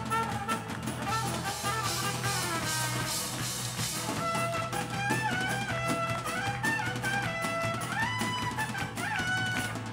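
A live band playing an instrumental passage: trumpet and strummed acoustic guitars over drums. About halfway through, a lead melody line comes to the front, stepping and sliding between notes.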